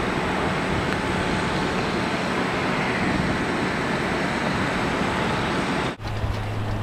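Diesel engines of heavy cranes running steadily, a constant engine noise with a faint low hum under it. About six seconds in the sound cuts off sharply and a different steady low hum takes over.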